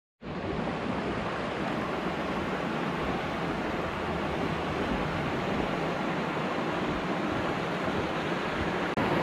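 Shallow mountain stream running over rocks and small cascades: a steady rushing of water. It begins after a split-second gap.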